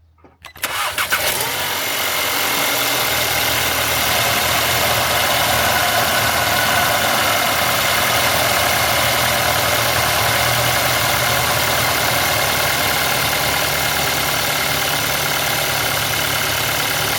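Audi A3 2.0 TFSI four-cylinder engine starting under a second in, then idling steadily with its new ignition coils and spark plugs fitted.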